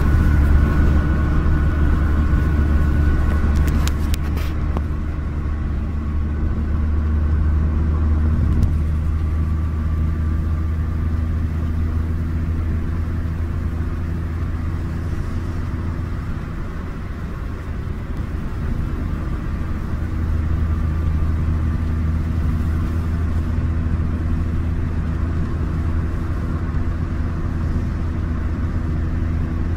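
Inside the cabin of a Suzuki FX, whose small three-cylinder engine drones steadily at high cruising speed under road and wind noise.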